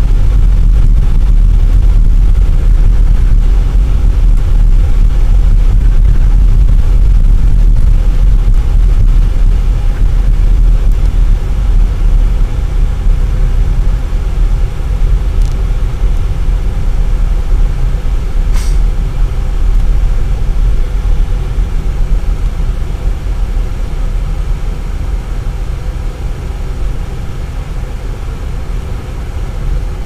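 Inside a moving car on a snow-covered road: a steady low rumble of engine and tyres, easing off over the last several seconds as the car slows.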